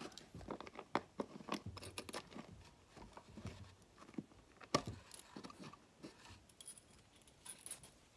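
Small metal keys clicking and scraping in the door locks of a wooden Melissa & Doug lock-and-key house as a key is worked and turned, with a brief jangle of the keys on their ribbon near the end.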